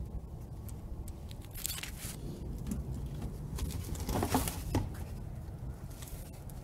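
Raccoon scrabbling inside a plastic street trash bin: scattered scrapes and clicks over a low steady rumble, with two louder scrapes a little past the middle.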